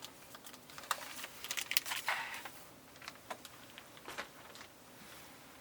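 Pieces of a toy craft kit being handled: light clicks, taps and a little rustling, busiest about a second or two in.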